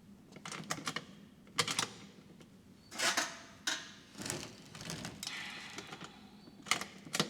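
Marlin 81DL bolt-action .22 rifle being handled and its action worked by hand: a string of light metallic clicks and short sliding scrapes at irregular intervals.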